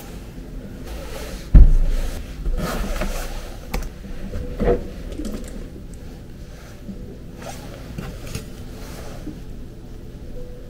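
Close rustling and handling noise from a padded jacket and things on a desk, with a heavy bump about one and a half seconds in and a smaller knock a few seconds later.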